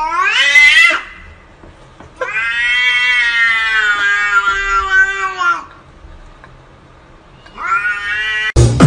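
Domestic cats yowling at each other in a standoff: a short rising yowl that ends about a second in, a long drawn-out yowl from about two seconds in to past the midpoint, and another rising yowl near the end. Loud electronic music cuts in abruptly at the very end.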